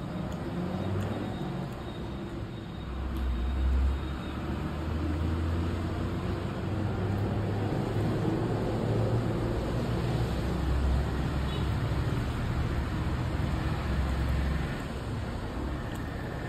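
Low rumble of vehicle traffic, swelling about three seconds in and easing off near the end.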